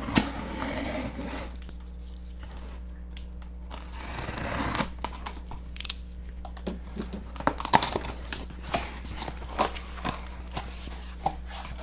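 Utility knife slicing through packing tape on a cardboard box, with a scraping, tearing stretch near the start and another about four seconds in. After that the cardboard flaps are pulled open and handled, giving many short crackles and taps. A steady low hum runs underneath.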